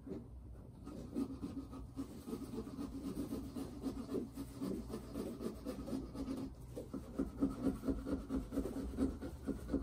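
Hand pumpkin-carving tools sawing back and forth through pumpkin rind: a scratchy rasp of quick, repeated strokes that gets faster and louder for the last few seconds.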